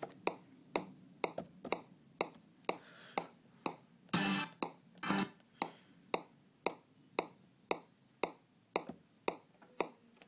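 Traktor Pro's MIDI clock tick, a steady metronome click at about two ticks a second, keeping the tempo for syncing Maschine. About four and five seconds in there are two short, louder noisy bursts.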